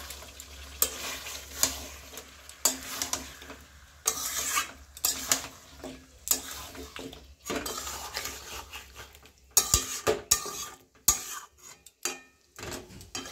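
A spatula stirring chicken pieces in masala in a kadai, with repeated scrapes along the pan and knocks against its sides. The strokes grow sharper and more clattery in the last few seconds. The chicken is being stirred often so it doesn't stick to the bottom while it is slow-fried.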